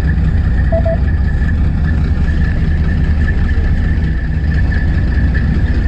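A fishing boat's engine running steadily at low revs, a constant deep hum with a thin, steady high-pitched whine above it.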